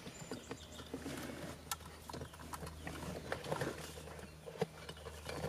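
Faint handling noises of CAN cables and their plastic connectors being moved and pushed into place, with scattered small clicks and knocks over a low steady hum.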